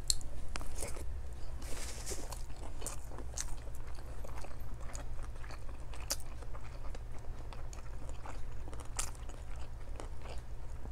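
A person chewing a mouthful of rice and fish eaten by hand, close to a clip-on microphone: scattered crisp mouth clicks and smacks over a low steady hum.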